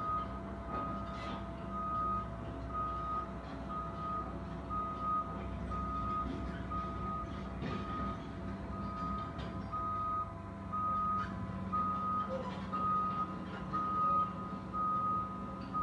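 Backup alarm of a construction vehicle beeping steadily, about once a second, over the low, steady running of a diesel engine.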